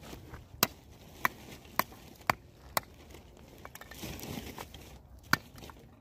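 Firewood being broken up for the fire: five sharp wooden cracks about two a second, a soft rustle, then another crack near the end.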